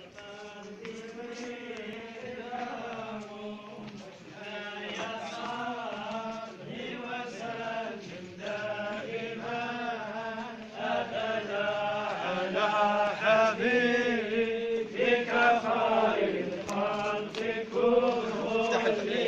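A group of men chanting together in unison, a devotional praise song for the Prophet Muhammad, with a steady held tone under the melody; the chant grows louder about halfway through.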